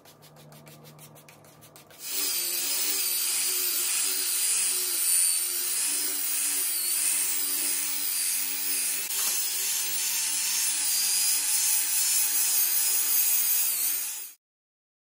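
Electric angle grinder running a wet diamond polishing pad over a marble slab. It starts about two seconds in, runs steadily with a slightly wavering pitch, and cuts off suddenly near the end.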